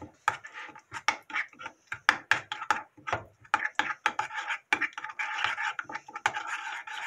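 Metal spoon stirring thick chili-paste seasoning in a small ceramic bowl: quick, irregular scrapes and clinks of the spoon against the bowl, several a second, with a stretch of steadier scraping about five seconds in.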